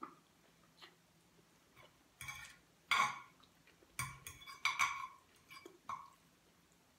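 Metal fork clinking and scraping against a ceramic plate while twirling spaghetti, a run of sharp clinks from about two to six seconds in, loudest near three seconds.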